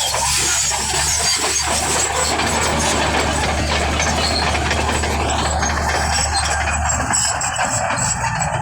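Bulldozer diesel engine running steadily, with a broad mechanical noise over a low engine note; the low note shifts about seven seconds in.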